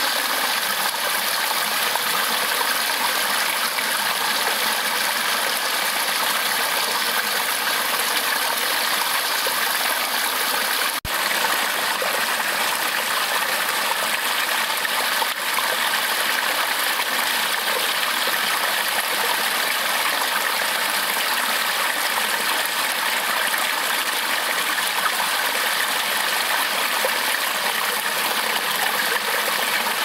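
Mountain stream running over rocks in small cascades: a steady splashing rush of water, with one brief dip about eleven seconds in.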